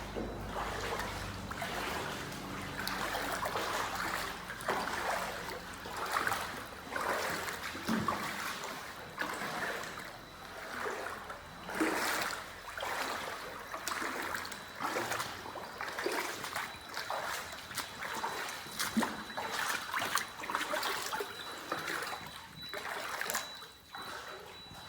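Water splashing and trickling in repeated irregular splashes, roughly one a second.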